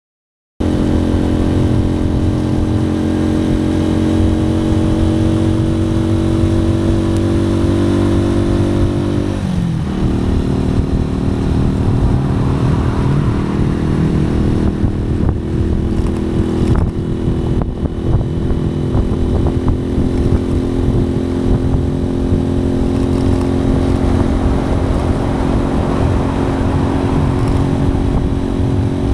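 Motorcycle engine running while riding, cutting in abruptly just after the start. Its pitch drops once about a third of the way through, then holds steady.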